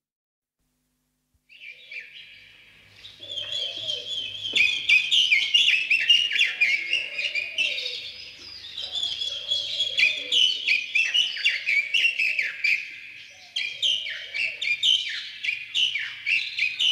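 Many small birds chirping and twittering together in a thick overlapping chorus. A lower call repeats every couple of seconds beneath it. The chorus starts about a second and a half in, after a moment of silence.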